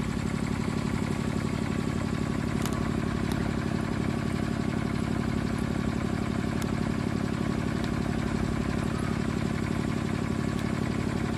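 Steady low mechanical drone like an idling engine, with a fast even pulse and no change in pitch.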